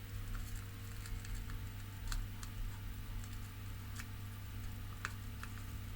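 Faint scattered clicks and taps of soldering a wire onto a circuit board pad, the wire and iron tip touching the board, over a steady low hum.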